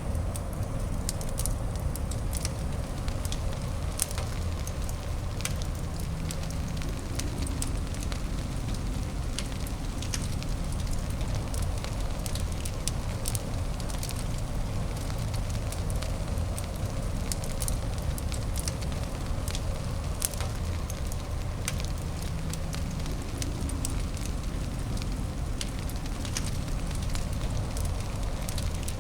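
A fire in a fireplace crackling, with many small sharp pops scattered irregularly over a steady low rumble and hiss.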